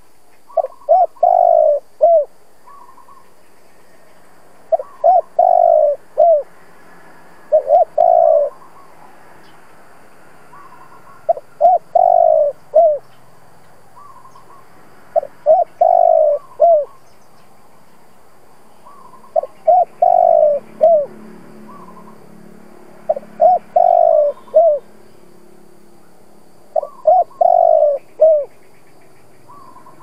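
Caged decoy spotted dove cooing its territorial song, eight phrases about every four seconds, each a few short clipped notes and then a longer, louder coo. Such a decoy's song is used to provoke other spotted doves into cooing.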